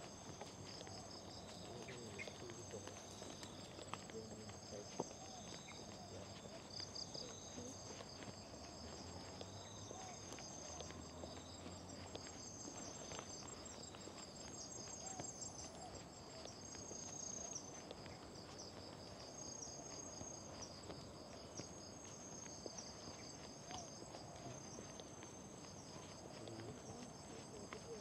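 Insect chorus trilling steadily, several high-pitched tones overlapping, one of them pulsing rapidly, with soft footsteps on a dirt path.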